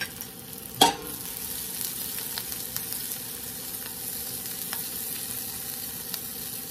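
Broccolini and whole garlic cloves frying in a fresh chunk of butter and olive oil in a stainless steel sauté pan: a steady sizzle that gets a little louder after a sharp metal clank about a second in, with light knocks as the pan is tossed.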